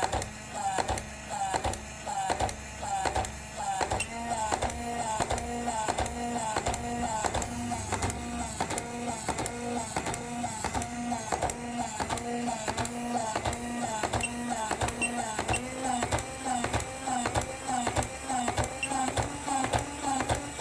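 Small electric toy mechanism, run on high voltage, clattering in a fast, even rhythm of about two to three knocks a second over a steady high motor whine.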